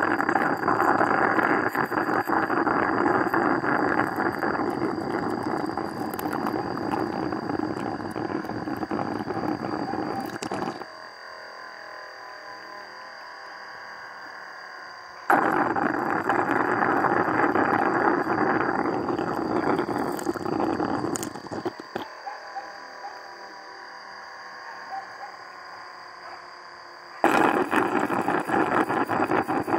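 Suction hose drawing honey and air out of opened stingless-bee (Heterotrigona itama) honey pots: a loud, steady crackly sucking that stops about 11 s in, starts again about 4 s later, stops again about 22 s in and resumes near the end.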